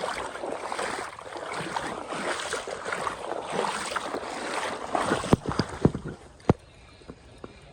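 Water splashing and sloshing, with several sharp knocks about five to six and a half seconds in, after which it goes quieter.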